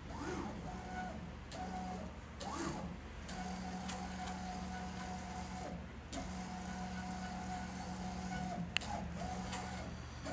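Stepper motor driving the X axis of a home-built CNC laser: a steady whine during each move, in several runs with short pauses between them, the pitch swooping up and down as the axis speeds up and slows down. A sharp click near the end.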